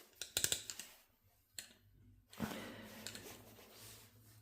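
A quick cluster of sharp clicks in the first half-second from a steel balisong being handled, its handles knocking together, followed by softer handling noise. The knife is being worked to test whether fresh oil has freed its binding pivots.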